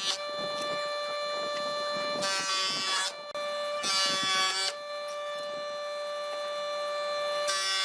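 Woodworking power tool running with a steady high motor whine, cutting into wood in three louder, rasping passes: about two seconds in, about four seconds in, and near the end.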